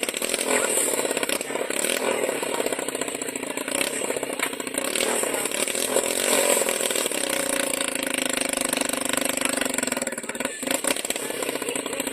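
Helicopter running, a steady buzzing engine-and-rotor drone with a fast, even pulse.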